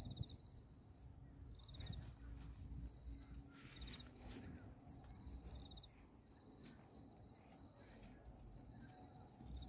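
Near silence: a faint, high, rapidly pulsed chirp repeats about every two seconds, over soft rustling of hands working soil.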